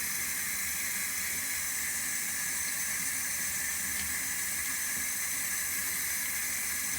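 Tap water running steadily into a bathtub, a continuous even hiss.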